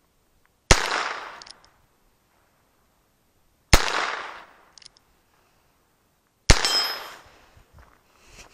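Three shots from a Heritage Rough Rider .22 LR single-action revolver, about three seconds apart, each trailing off over about half a second.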